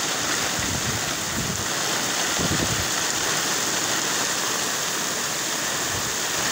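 Heavy tropical downpour falling steadily on flooded rice paddies, a dense even hiss with a few brief low rumbles about one and a half and two and a half seconds in.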